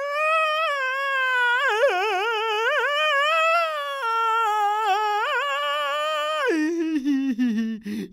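A voice sings one long wordless high note with a wobbling vibrato. About six and a half seconds in it drops to a lower, wavering hum.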